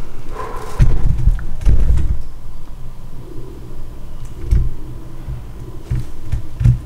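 A series of dull, low thuds and bumps at irregular intervals, the strongest about a second and two seconds in and again near the end.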